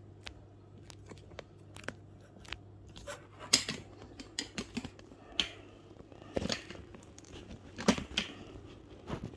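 Kitchen work sounds: scattered clicks and knocks of hands, utensils and dough on a work surface while making dumplings, with a few louder knocks. A faint steady low hum runs underneath.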